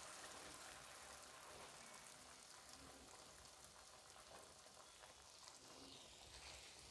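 Faint sizzling of spinach-masala paste in a pan of hot tempered oil. It dies away within about the first second and leaves near silence.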